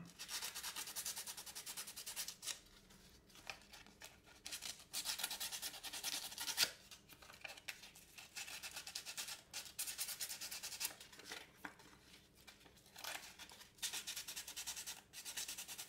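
Wooden knife handle being hand-sanded with coarse 80-grit sandpaper: rapid back-and-forth rasping strokes in bouts, broken by short pauses.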